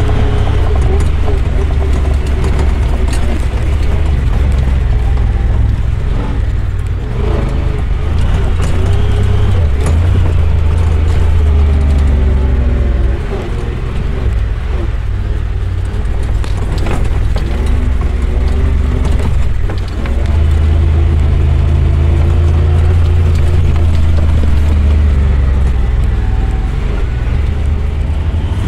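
An off-road vehicle's engine running under way, its pitch rising and falling as the throttle opens and eases off, over a heavy low rumble, with brief lulls about 13 and 20 seconds in.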